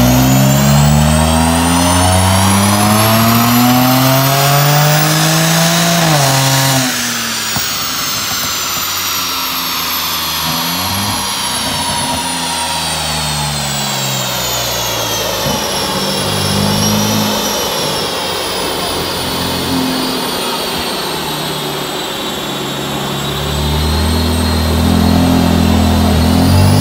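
Tuned car engine pulling hard under load, its pitch climbing steadily for about seven seconds before it lifts off and winds down, with a high whine. It then runs lower and unevenly before a second pull starts building near the end, as in a power run on a rolling-road dyno.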